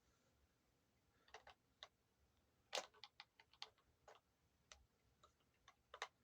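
Scattered faint clicks and taps of a screwdriver working at the small screws of a guitar's tuning pegs, the loudest nearly three seconds in.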